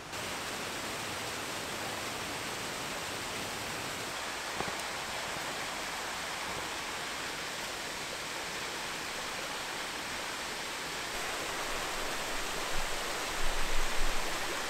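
Small mountain creek waterfall rushing steadily over rocks into a pool. Near the end there are a few louder low bumps.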